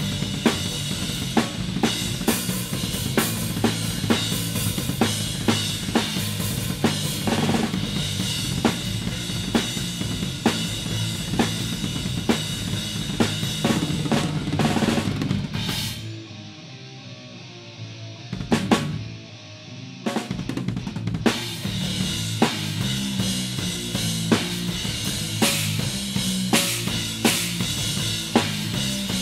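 Death metal drumming on an acoustic drum kit: kick drum, snare and cymbals hit hard and steadily. About sixteen seconds in, the playing drops out for some five seconds, broken by one loud hit, then the full kit comes back in.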